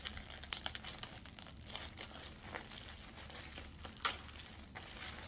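Crinkly packaging rustling and crackling in short, irregular bursts as a skirt is unpacked and handled.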